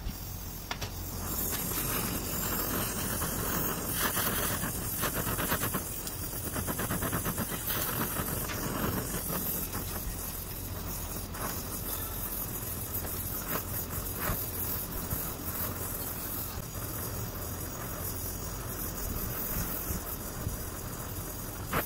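Gas welding torch flame hissing steadily as filler rod is melted onto a gear's worn teeth, with constant fine crackling from the sparks.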